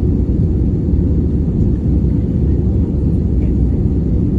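Steady low rumble of an Airbus A321neo's jet engines and rushing air heard from inside the passenger cabin, without change.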